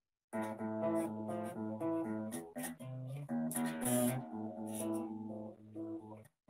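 Electric guitar played solo, heard over a video chat: a quick run of picked single notes that starts about a third of a second in and breaks off for a moment near the end.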